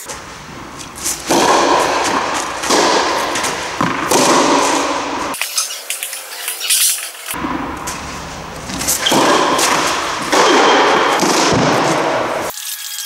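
Tennis balls struck by rackets in a rally, a hit about every second and a half in two runs of three. Each hit rings on in a large reverberant hall over a loud rushing noise.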